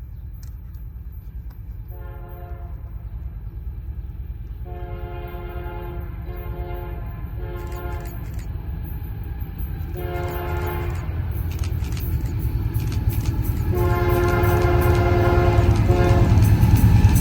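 Union Pacific diesel locomotive's multi-chime air horn sounding about seven blasts, some short and some long, in an irregular pattern. Underneath, the approaching intermodal train's rumble grows steadily louder.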